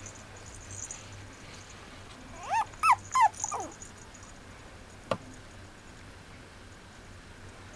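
Mame shiba puppy giving a quick run of about four high yips and whines, the last sliding down in pitch. A single light knock follows a little over a second later.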